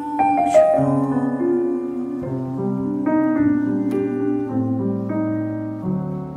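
Solo piano playing an instrumental passage: a chord struck near the start, then a melody moving note by note over held bass notes.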